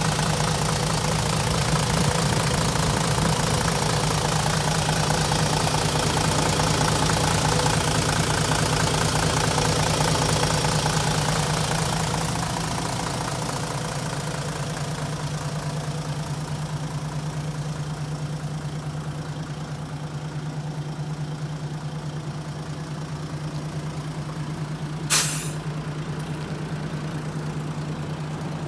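Mitsubishi 6D17 inline-six diesel engine idling steadily in a bus's open rear engine bay, with a deep even hum that turns quieter after about 12 seconds. A short sharp noise stands out about 25 seconds in.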